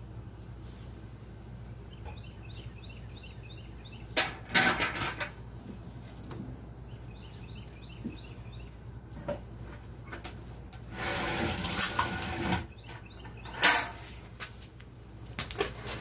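Handling noises as a metal paint can holding a smouldering pellet smoker tube is lifted, loaded and set back under a flexible aluminium duct: a few sharp clanks and scrapes about four seconds in and near the end, with a longer rustling, scraping stretch about eleven seconds in. Small birds chirp faintly over a steady low hum.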